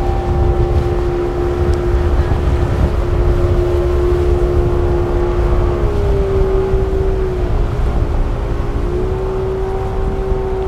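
Yamaha outboard motor on a center-console boat running at speed, a steady engine drone that rises briefly in pitch about six seconds in and again near nine seconds, over a low rumble of wind and water.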